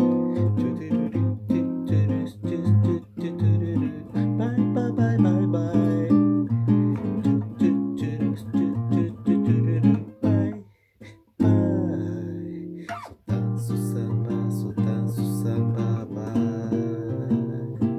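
Nylon-string classical guitar played in a bossa nova pattern, with plucked bass notes under the chords. It breaks off briefly about ten seconds in, then picks up again.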